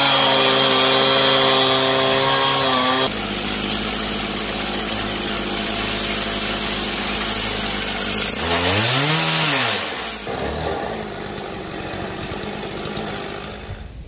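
Stihl chainsaw cutting through California buckeye burl, running steadily at high revs. Partway through, the engine revs up and drops back once, and it runs a little quieter in the last few seconds.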